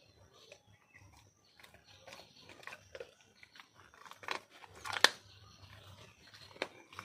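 A Rottweiler crunching and chewing a chicken leg bone: irregular sharp cracks of bone breaking in its jaws, the loudest about five seconds in.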